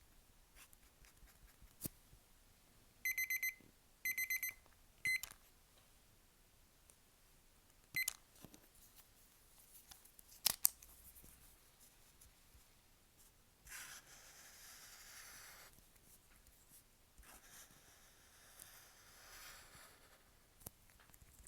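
Electronic timer alarm beeping in three short bursts of rapid beeps, marking the end of a one-minute drawing. A few sharp clicks follow, then two stretches of soft scratching from a paint marker drawn across paper.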